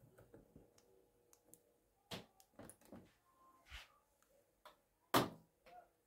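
Altus front-loading washing machine being set: its program dial turned and control buttons pressed, giving a scattering of soft clicks and knocks, with one sharper knock about five seconds in.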